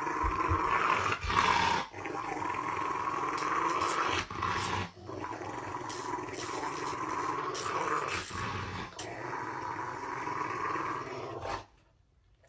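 Rottweiler growling in long, unbroken stretches with a few short pauses for breath, cutting off abruptly near the end: a warning growl at having its nails trimmed.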